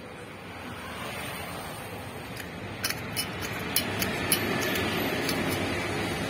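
Stainless steel water bottle's screw cap being turned off by hand: a run of short clicks and ticks from the metal threads about halfway through, over a steady rushing noise that grows louder.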